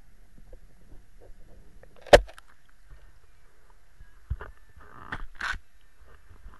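Handling noise from a camera being carried or covered: rubbing and rustling against the mic, with one sharp knock about two seconds in and a few softer knocks and rustles near the end.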